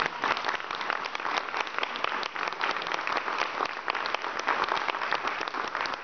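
Audience applauding, many hands clapping at a steady pace.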